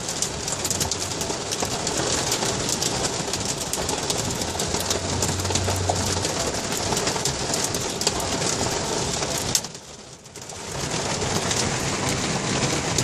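Hail drumming on the roof and body of a moving car, heard from inside the cabin as a dense clatter of countless small hits. About ten seconds in it cuts out sharply for a second, then builds back up.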